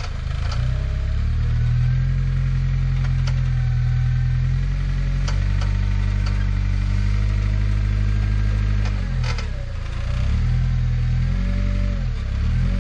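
Suzuki Samurai rock crawler's engine working under load on a slow rock climb, its revs rising and falling with the throttle and dropping briefly about nine seconds in. A few sharp clanks sound over it.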